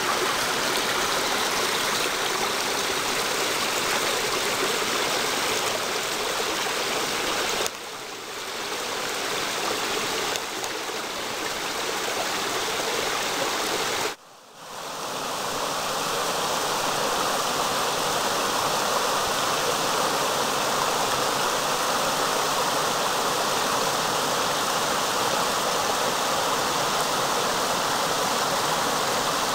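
Small forest creek running shallow over rocks: a steady rush and babble of water. It drops away briefly twice, about eight and fourteen seconds in.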